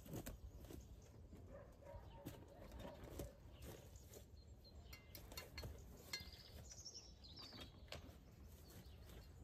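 Near-silent outdoor ambience with scattered soft knocks and taps, and a few faint bird chirps about two-thirds of the way through.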